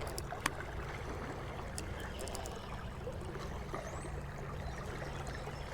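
Quiet river ambience: water moving against the boat, under a faint steady low hum, with a few light clicks scattered through.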